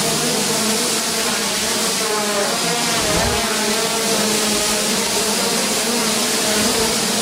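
Hubsan H501S quadcopter hovering, its four brushless motors and propellers giving a steady whirring buzz. Several tones in it waver slightly up and down in pitch as the craft holds and shifts position.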